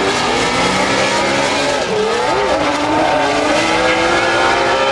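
Drift car's engine revving hard under load, its pitch swinging up and down repeatedly, over a steady hiss of sliding tyres.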